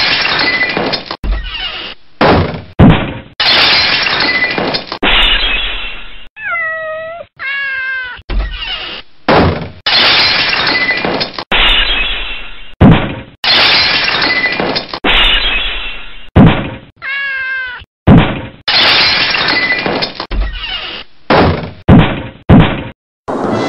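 Cartoon sound effects for an animated kitten: a series of harsh, noisy bursts of a second or two each, cut in one after another, with a couple of meows and several short, loud knocks among them.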